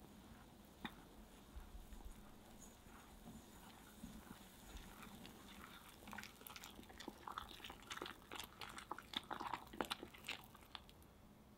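Silicone whisk stirring thick chocolate brownie batter in a glass bowl: faint sticky, wet clicks and taps, sparse at first and coming thick and fast in the second half as the flour is worked in.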